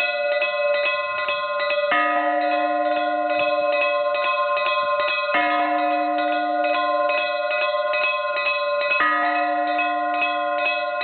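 Orthodox church bells ringing a festive peal: the small bells are struck rapidly, several strikes a second, over a lower bell that sounds three times, about every three and a half seconds.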